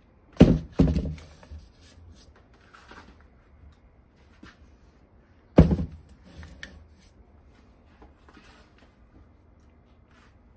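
Grain-filled plastic storage containers set down on a cupboard shelf: two knocks close together near the start and a third about five seconds later, with faint shuffling between.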